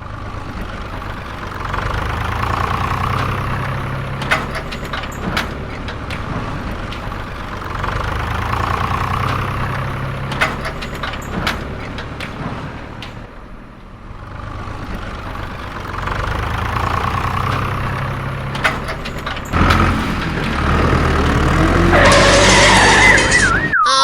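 Tractor-type engine running, its sound swelling and easing in repeated cycles about every seven seconds, with scattered clicks. Near the end there is a louder noisy burst with a wavering whistle-like tone.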